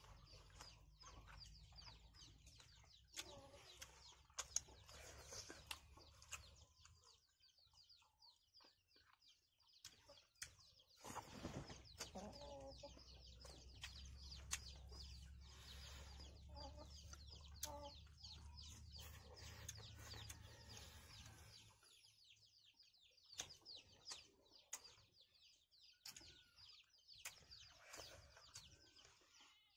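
Quiet eating sounds, small clicks of chewing and fingers working rice and curry, with chickens clucking and small birds chirping in the background. A faint low rumble comes and goes.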